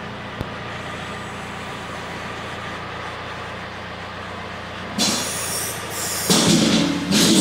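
Compact tractor engine running steadily, with a short click about half a second in. From about five seconds in, a louder hissing and squealing noise comes in as the front loader moves.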